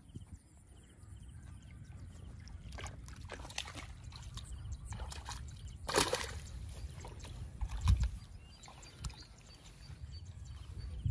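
Muddy water sloshing and splashing as it is worked by hand, with a louder splash about six seconds in and another about eight seconds in.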